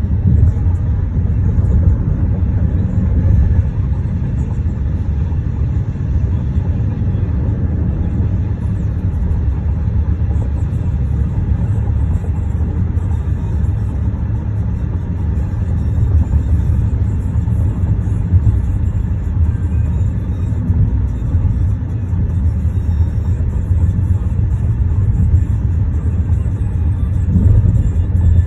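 Steady low rumble of road noise inside a moving car's cabin: tyres and engine at highway speed.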